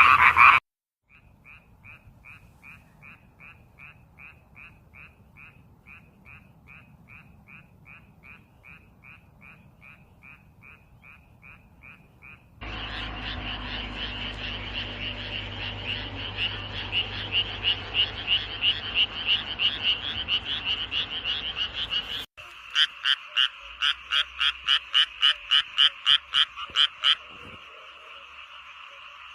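Frog calls from several recordings spliced one after another. First a steady run of short, evenly spaced calls, about three a second. A couple of seconds before the middle it cuts to a louder, denser chorus of many frogs. Late on comes a loud series of sharp calls, about three a second, which gives way to a steady background chorus.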